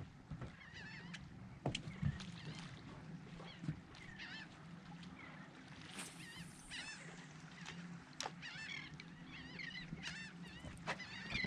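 Birds calling over and over in short, wavy notes, with a low steady hum underneath and a few sharp knocks.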